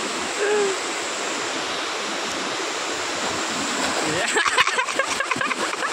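Rushing whitewater pouring steadily. About four seconds in, heavy splashing breaks through as a person plunges into the current.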